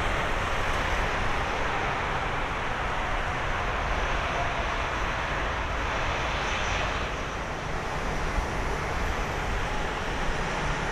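Boeing 787-10 airliner's jet engines running as it rolls out after landing, a steady rushing roar that eases off a little about two-thirds of the way through.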